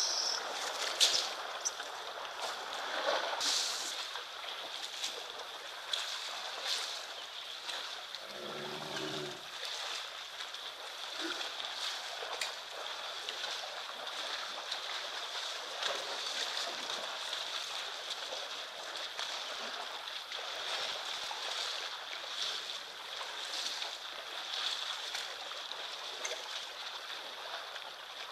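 Herd of African Cape buffalo wading and drinking in a shallow waterhole: water splashing and sloshing with scattered knocks, over a steady high hiss. One short low call about nine seconds in.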